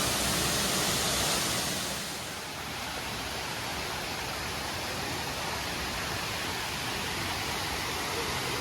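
Steady rushing of falling water, as from a waterfall, easing a little about two seconds in.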